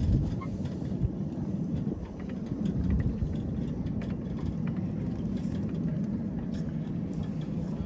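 A 5-inch gauge ride-on miniature train running along its track: a steady low rumble with a few light clicks.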